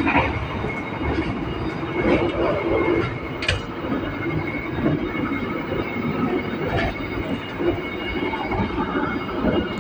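Train carriage in motion: a steady rumble of wheels on rail, with a faint steady high whine and a few sharp clicks.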